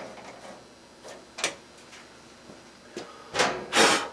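Handling noise from refitting a flexible aluminium dryer vent duct: a few light clicks, then two short scraping rustles near the end.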